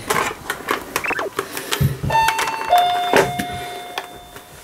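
Doorbell chime ringing its two-tone 'pin-pon': a higher note about two seconds in, then a lower note held and fading out. Before it come scattered clicks and rustling.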